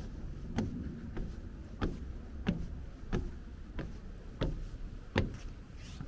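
Footsteps of someone walking at an even pace, about three steps every two seconds, over a steady low rumble.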